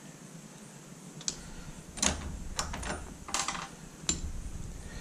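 Sharp metal clicks and clinks, about five spread over a few seconds, from snap ring pliers working the retaining clip on a motorcycle foot peg's mounting pin and from metal parts being handled; the last click rings briefly.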